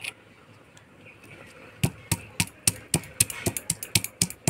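Stone pestle (nora) pounding pieces of ginger against a flat grinding stone (shil) to crush them into paste. A quick, irregular run of sharp knocks, about three or four a second, starting about two seconds in.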